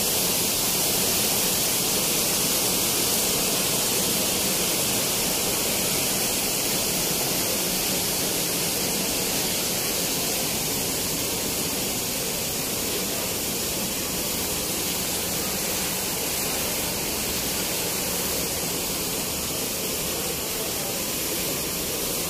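Steady, unbroken hiss of rushing water, even and unchanging throughout.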